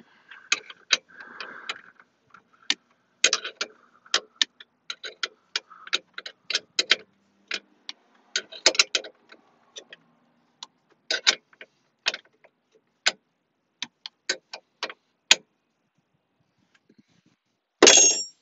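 Ratchet wrench clicking in short irregular runs as 10 mm bolts on the dash frame are tightened, with a louder clatter near the end.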